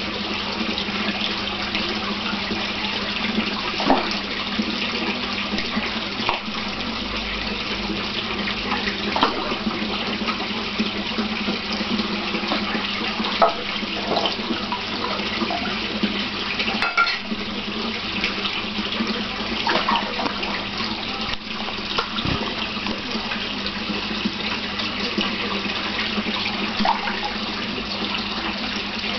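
Steady rush of running water in a large indoor fish pond, over a steady low hum, with a few short sharp splashes as big catfish take food at the surface.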